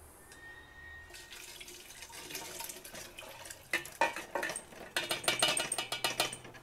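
Cooked green pepper, onion and celery in liquid being poured from a pan into a large empty stainless steel stockpot, splashing in. From about halfway a spoon scrapes and clinks rapidly against the metal pan as the last of the mixture is scraped out.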